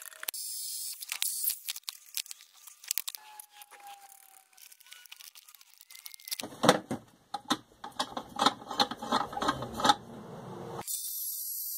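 Metal hardware and tools being handled while a hinge is bolted on: scattered clinks and knocks, then a few seconds of rapid clattering. Near the end it gives way abruptly to a steady high hiss with a faint whine.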